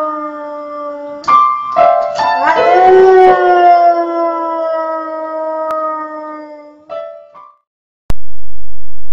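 A hound-type dog howling while pawing the keys of an upright piano: piano notes struck by its paws under wavering howls, the longest held for about four seconds before it fades out. A steady low hum starts abruptly near the end.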